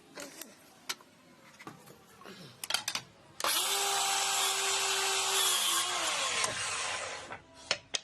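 Power tool motor runs steadily for about three seconds, then winds down with a falling pitch. A few sharp clicks and knocks come before it and near the end.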